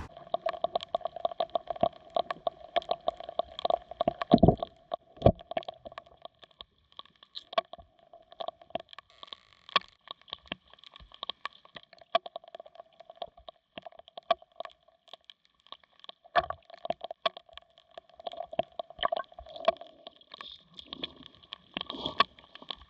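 Footsteps wading through a shallow creek: irregular sloshing and splashing of water around the legs and feet, with running water underneath.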